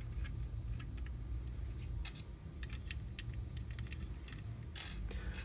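Faint, scattered small clicks and taps of a hex key, screws and 3D-printed plastic parts being handled while a Chimera hot end is screwed onto an X carriage, with a brief louder rustle near the end, over a low steady hum.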